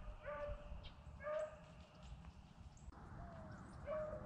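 A rabbit-hunting hound baying faintly in the distance, giving short repeated bawls about once a second as it runs a rabbit's track by scent.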